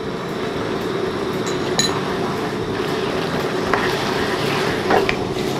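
Sauce simmering in a wok on a gas burner, a steady hiss, as water-starch slurry is spooned in and stirred with a wooden spatula. A few light clinks of a spoon against a bowl or the pan, the clearest about two seconds in.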